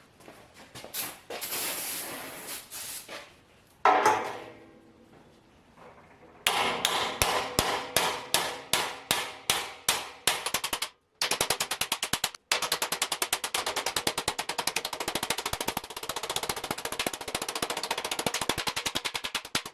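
Hammer striking a steel plate clamped over square tubing, folding it into a 90-degree bend. After a few scrapes and one ringing knock, the blows come at a steady two or three a second, then, after a brief pause, much faster, several a second.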